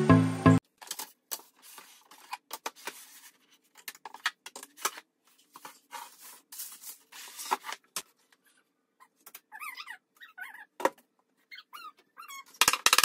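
Intro music cuts off half a second in. After it come irregular knocks, taps and scrapes of particleboard furniture panels being handled and fitted together during flat-pack drawer-unit assembly, with a few short squeaks past the middle. A louder run of knocking comes near the end.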